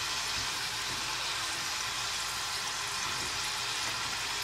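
Khvorost dough strips deep-frying in hot vegetable oil, a steady sizzle.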